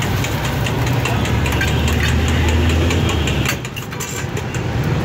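Metal spatula rapidly tapping and scraping on a flat steel griddle while chopping frying egg, about four strokes a second, over a steady low engine-like rumble. The tapping stops about three and a half seconds in.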